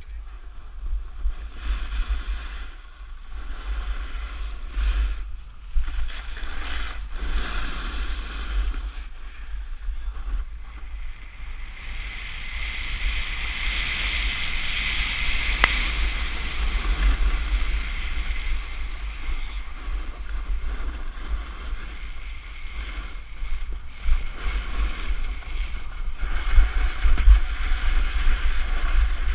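Wind noise buffeting the microphone during a fast snowboard descent, with the board's edge hissing and scraping over packed snow; the scraping hiss swells in the middle.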